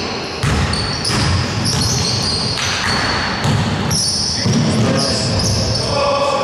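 A basketball being dribbled on a hardwood gym floor, a bounce roughly every second, echoing in the hall, with sneakers squeaking on the court now and then.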